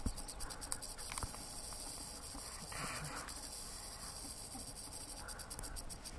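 Midget faded rattlesnake (Crotalus concolor) rattling: a faint, continuous high-pitched buzz that pulses quickly, the snake's defensive warning.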